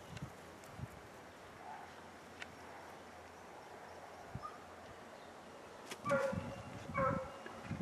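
A dog barks twice, about a second apart, near the end. Before that there is only quiet outdoor background with a few faint ticks.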